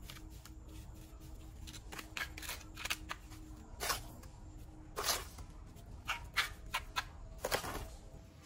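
Small steel trowel scraping and scooping wet cement mortar in a plastic basin: a string of short, irregular scrapes.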